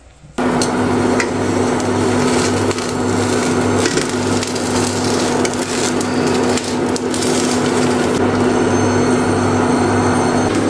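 Bánh xèo, a Vietnamese crispy pancake, frying in hot oil in a pan: a loud, steady sizzle and crackle that starts abruptly about half a second in, over a steady low hum.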